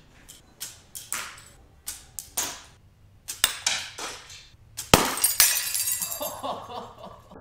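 A run of sharp, ringing clinks, then about five seconds in a loud crash of something breaking, with about two seconds of clattering after it.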